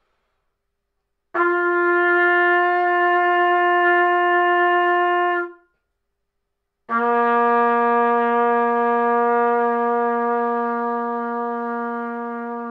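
Trumpet playing two long, steady held notes, the second lower and longer than the first, with a short gap between. These are first sounds made by buzzing the lips in the mouthpiece with the lips together and the corners firm.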